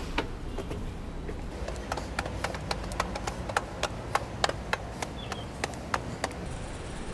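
Footsteps clicking on a concrete pavement, a quick irregular run of sharp steps that stops shortly before the end, over a low steady rumble of road traffic.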